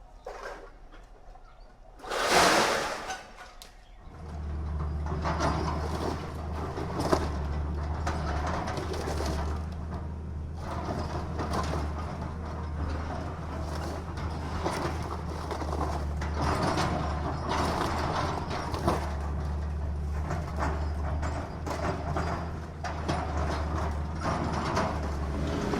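Recycling-plant machinery with a loud noisy burst about two seconds in. From about four seconds in, machinery runs with a steady low hum, under constant irregular clattering and knocking of material.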